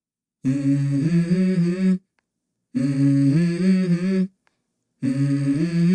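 Wordless hummed vocal melody from a song: three phrases of about a second and a half each, separated by short gaps and starting about half a second in.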